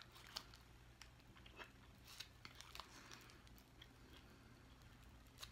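A person quietly chewing a fondant-filled candy, with a few faint small clicks and crunches, most of them in the first three seconds.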